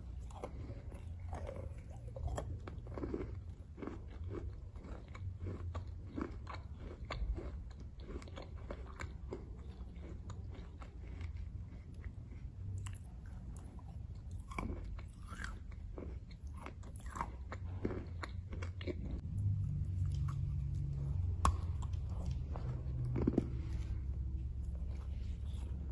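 Lumps of chalk being bitten and chewed, with dense, irregular crunching and crackling as the chunks break between the teeth, over a low steady hum.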